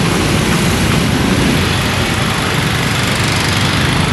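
Steady street traffic noise with a low engine rumble from motor vehicles running close by.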